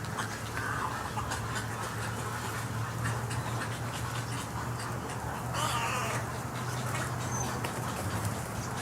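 Snowy egrets calling, a few short calls with the loudest about five and a half seconds in, over a steady low hum.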